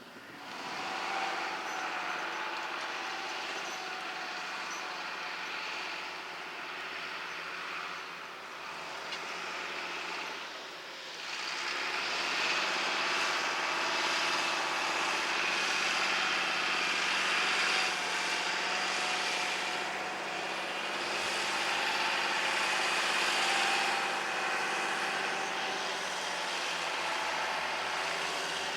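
Tractor engine running steadily, louder from about twelve seconds in.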